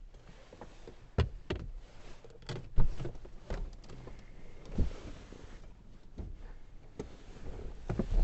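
Scattered light knocks and clicks of things being handled, with a few sharper knocks spaced irregularly.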